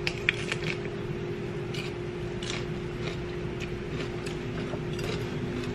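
Faint, scattered light clicks of cutlery against a plate over a steady hum.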